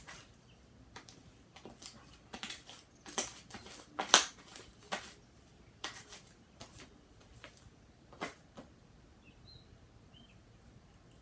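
Slime being mixed and kneaded by hand: irregular wet squishes and sticky pops, the loudest about four seconds in. A few faint, short high squeaks near the end.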